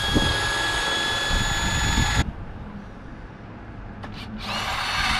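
Power drill drilling out the old rivets in a sailboat boom's end fitting: a steady high-pitched whine for about two seconds, stopping, then starting again a couple of seconds later.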